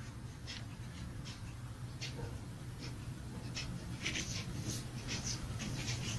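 Light clicks and scratchy rustles of small carburetor parts being handled, as a diaphragm and gasket are fitted onto a Husqvarna 440 chainsaw carburetor body. The clicks come more often in the last couple of seconds, over a steady low hum.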